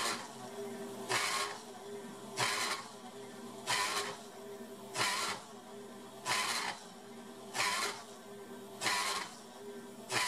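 Benchtop CNC mill milling a slot in brass: the treadmill-motor spindle and V-belt drive run with a steady hum, while the end-mill cut rises into a harsh grinding surge about every 1.3 seconds.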